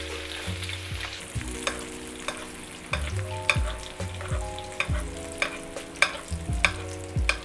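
Butter foaming and sizzling around a strip loin steak in a nonstick frying pan while it is spoon-basted, with the metal spoon clicking and scraping against the pan again and again.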